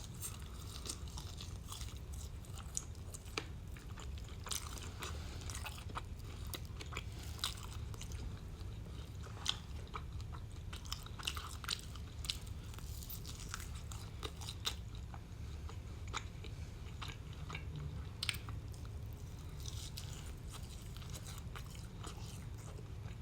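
Close-up chewing and biting: wet mouth sounds with irregular crunches and clicks, from a person eating steak and toasted garlic bread, over a low steady hum.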